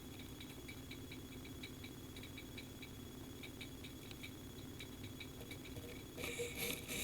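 Faint, quick, slightly uneven ticking over a steady low electrical hum. About a second before the end, a louder rustling of handling noise starts.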